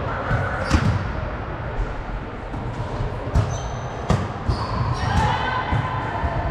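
Volleyballs thumping on a gym floor in a large echoing hall, a few separate knocks over a steady background bustle.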